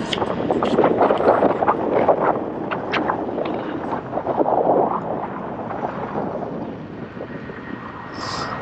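Wind rushing and buffeting around a motorcycle helmet at riding speed: a loud, steady rush with gusty peaks that eases somewhat after about five seconds.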